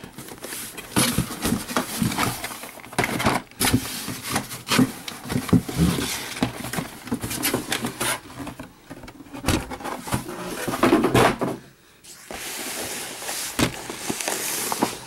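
Cardboard boxes being handled and stacked: card sliding and scraping against card, with irregular soft knocks as each box is set down.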